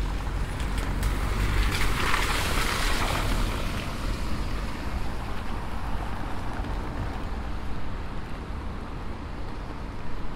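A vehicle passes on a rain-wet street: its tyre hiss swells about two seconds in and fades away, over a steady low rumble of city traffic.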